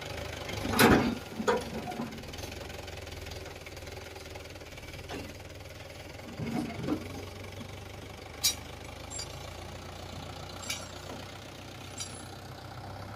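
Mahindra Yuvo tractor's diesel engine running steadily at low revs while it pulls its raised tipping trailer forward, with a few short knocks and clanks over it, the loudest about a second in.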